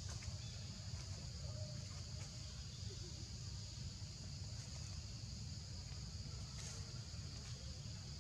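Steady high-pitched drone of an insect chorus, over a low steady rumble.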